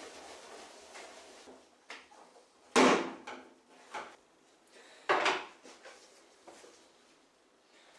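Two loud knocks of hard objects, about three and five seconds in, with a few lighter knocks and handling noise between them.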